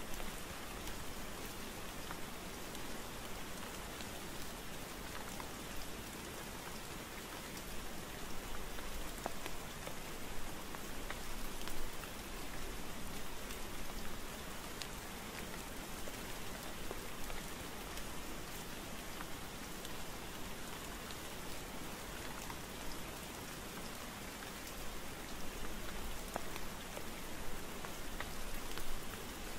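Rain falling steadily, an even wash of noise with scattered individual drops ticking through it.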